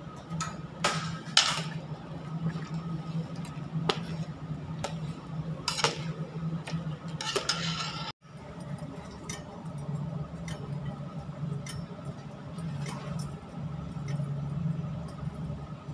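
A metal utensil clanking against a large stainless steel pot as noodles are stirred in boiling water, over a steady low hum. After a sudden break about eight seconds in come fainter clinks of metal bowls.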